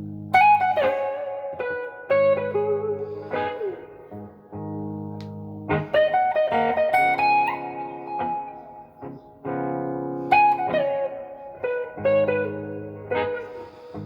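Electric guitar playing a slow blues lead: a Gibson SG Special on its neck pickup, tuned down to E-flat, through a Fender Blues Junior tube amp. Single sustained notes with string bends sliding up and down, over a low sustained backing part.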